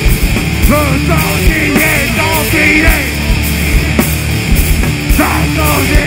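Live heavy rock band playing loud on electric guitars, bass guitar and drums, with bending notes through the first three seconds and again near the end.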